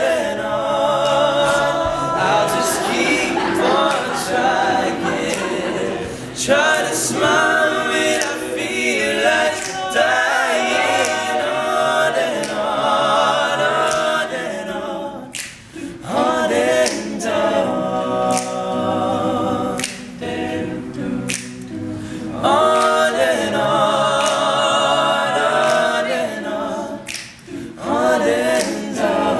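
Male a cappella group singing in close harmony, phrase after phrase with short breaks between, over sharp finger snaps keeping the beat.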